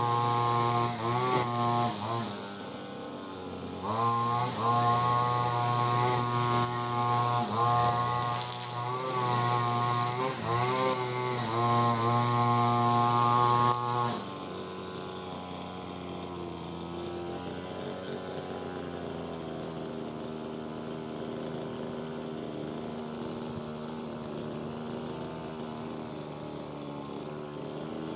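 Ogawa 26cc two-stroke brush cutter with a nylon-line trimmer head, revved up and down while cutting thick, long grass. The engine dips briefly about two seconds in, and about fourteen seconds in it falls to a quieter, steadier note for the rest.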